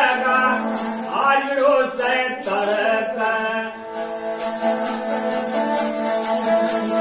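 Man singing a folk song to his own bowed folk sarangi, which holds a steady drone under the voice. The singing stops about three seconds in and the sarangi plays on alone, with a light rhythmic jingle keeping time with the bow strokes.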